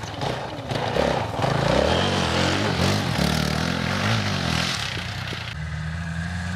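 Off-road 4x4 vehicle engine revving up and down repeatedly under a wash of noise, then settling to a steadier run about five and a half seconds in.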